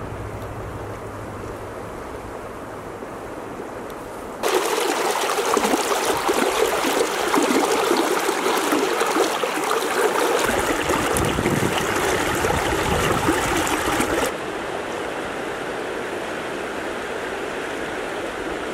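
Gallatin River water rushing steadily over shallow riffles. It turns abruptly louder about four seconds in and drops back abruptly about fourteen seconds in.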